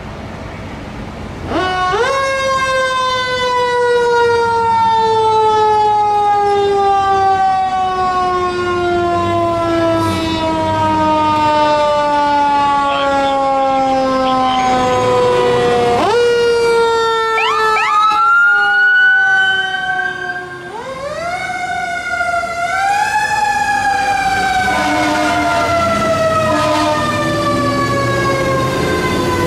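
Fire truck siren winding up sharply about a second and a half in, then slowly falling in pitch for some fifteen seconds. It is wound up again around the middle and twice more in the second half, each time sliding slowly back down.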